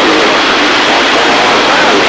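Loud, steady CB radio static from the receiver's speaker, with a weak, garbled voice of a distant station wavering faintly under the hiss.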